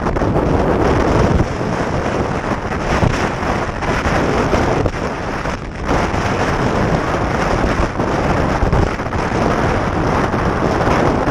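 Heavy wind buffeting the action camera's microphone, a dense steady rush with brief lulls, over choppy water splashing around a sea kayak's bow.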